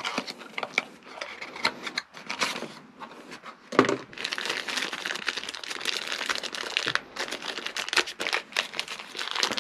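Thin clear plastic bag crinkling as hands open it and pull out the headphones' charging cables, with one sharper crackle about four seconds in.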